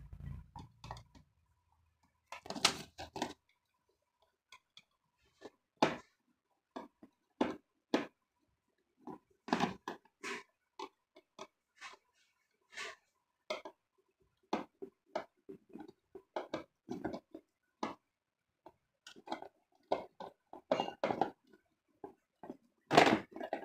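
Screwdriver and fingers working plastic fasteners loose from a corrugated cardboard packaging insert: a string of separate clicks, taps and scrapes, one or two a second, with a louder clatter near the end.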